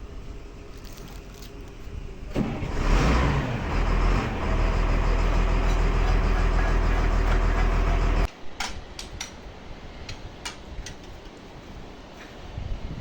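An engine starts up about two and a half seconds in, runs loudly and steadily with a deep hum, and cuts off suddenly after about six seconds. Light metallic knocks and clicks follow.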